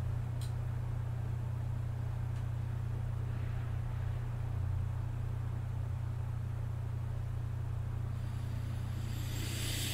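Steady low hum under a faint, even background hiss, with no distinct events; a soft hiss rises briefly near the end.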